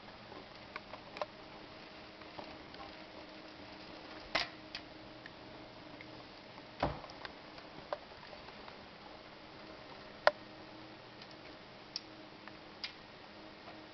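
A thin trickle of tap water running into a stainless steel kitchen sink while a cat drinks and paws at it, with irregular sharp ticks and taps on the metal, a duller thump about seven seconds in and the loudest tap about ten seconds in.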